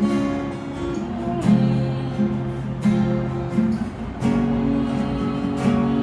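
Tayste TS-35 acoustic guitar strummed, playing a chord progression with a fresh strum every second or so.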